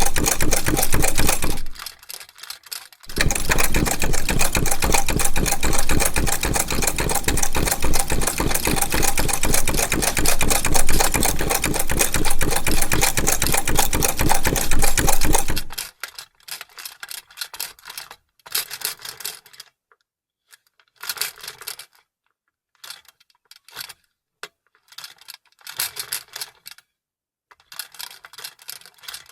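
Vintage sewing machine stitching at a steady rhythm. It pauses briefly about two seconds in, then runs on for about twelve seconds and stops. After that come only short, broken bursts of mechanical clicking with quiet gaps between them.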